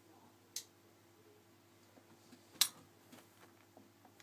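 Two sharp clicks about two seconds apart, the second one louder, followed by a few faint light ticks in an otherwise quiet room.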